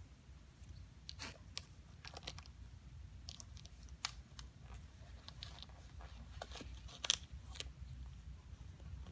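Shoelaces on an Air Jordan 5 sneaker being pulled and tied by hand: faint scattered rustles and scrapes with a few small clicks, the sharpest about four and seven seconds in.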